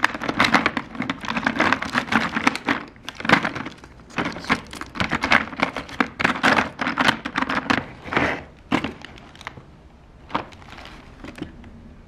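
Pens, markers and paint tubes clicking and clattering against each other and the plastic trays of a drawer as a hand rummages through them. The clatter thins to a few scattered clicks over the last few seconds.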